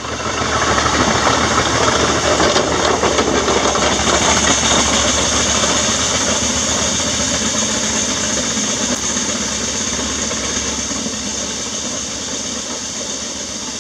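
Miniature 6-inch scale steam traction engines running past at close range, their steam hissing over the mechanical clatter of the engines and wheels. The sound is loudest a second or two in and slowly fades as they move away.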